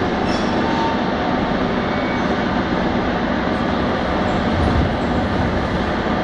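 Moscow metro train pulling in alongside the platform and coming to a stop, a steady rumble of its wheels and motors.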